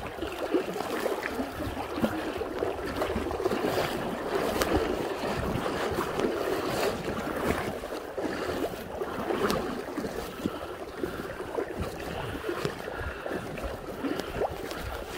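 Shallow river current rushing and babbling, a steady, busy water noise with no engine in it.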